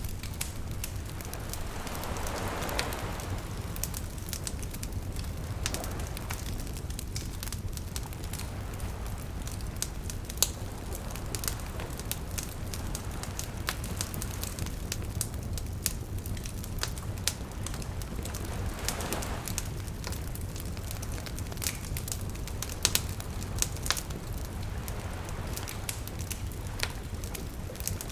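Wood fire crackling, with frequent sharp pops over a low steady rumble. Small waves wash in softly twice, a couple of seconds in and again about two-thirds of the way through.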